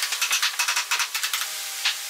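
Quick scraping strokes of a hand tool rubbing along wood, several a second, with one stronger stroke near the end, over a steady hiss.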